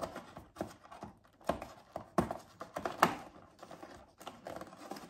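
Plastic treat packaging and a cardboard advent-calendar box being handled: irregular sharp crackles and taps.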